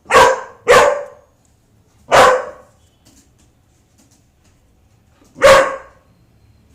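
Golden retriever barking four times: two quick barks together, another about a second later, and a last one a few seconds after that.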